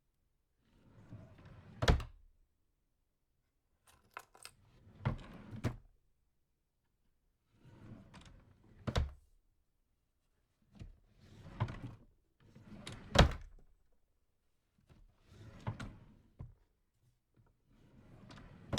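A small drawer slid open and shut over and over, about seven times with pauses between: each stroke a short wooden sliding scrape that ends in a sharp knock as the drawer hits its stop. The loudest knock comes a little past the middle.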